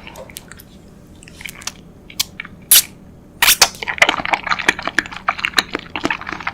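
Close-miked eating of a peach-flavoured jelly noodle: a few sharp clicks, then from about halfway dense, wet chewing.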